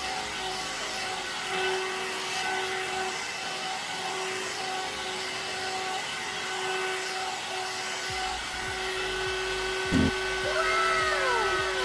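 One-step hot air brush (hair dryer and styler) running steadily: an even motor whine over rushing air. A single knock about ten seconds in.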